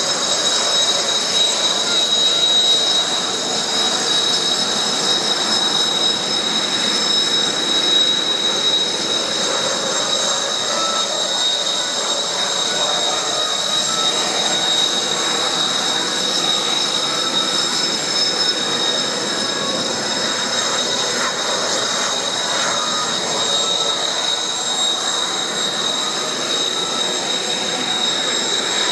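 Kawasaki T-4 jet trainers' twin turbofan engines at taxi power, a steady high-pitched whine in several tones over a rushing noise.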